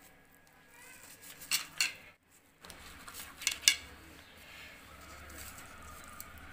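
A steel knife clinking and scraping against a ceramic plate while cutting through fried bread toast, in two pairs of sharp clinks about a second and a half and three and a half seconds in. A faint low hum runs under the second half.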